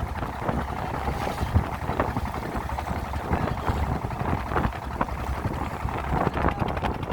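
A small boat's motor running steadily underway, with wind buffeting the microphone.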